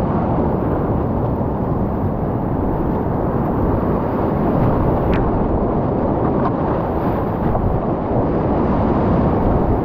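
Whitewater rapids rushing around a kayak, heard close up from the boat: a loud, steady, deep rush of churning water, with a single small tick about five seconds in.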